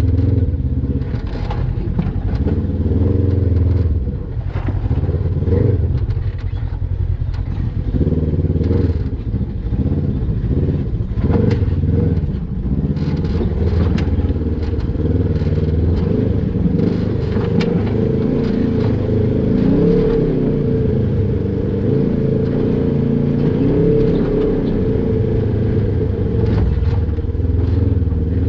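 Polaris RZR XP 1000 side-by-side's twin-cylinder engine working at low speed, its pitch rising and falling as the throttle is fed on and off while crawling over rock. Scattered knocks and scrapes of the machine on the rocks come through the engine sound.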